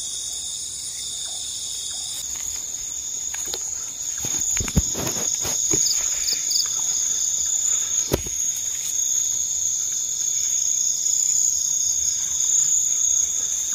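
Night chorus of crickets and other insects: a steady, high-pitched trilling. A few brief knocks or rustles come a little under five seconds in and again about eight seconds in.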